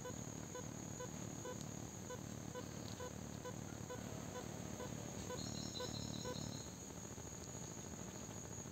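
Steady high-pitched insect trill with a soft regular pip about twice a second over a low rumbling background; a brief higher warbling sound comes in about five seconds in.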